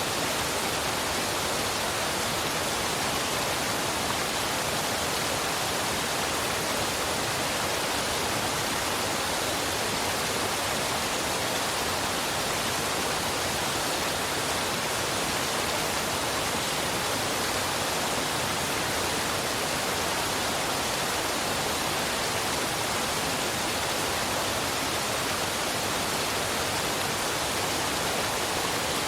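Waterfall and river rushing: a steady, unbroken wash of water noise that never changes in loudness.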